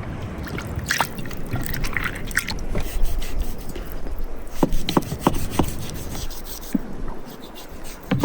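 Irregular clicks, knocks and scraping of food preparation, with some liquid trickling.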